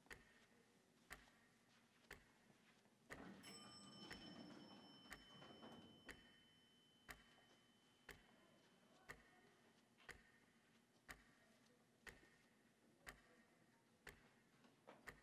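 A clock ticking steadily, one tick a second. About three seconds in, an elevator chime rings and fades over a few seconds, over a low rumble as the elevator door slides open.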